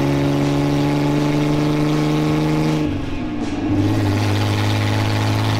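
Supercharged engine of a tube-chassis off-road crawler running steadily while driving on the road, on a run to break in newly installed axle gears. About three seconds in its note drops, then holds steady at a lower pitch.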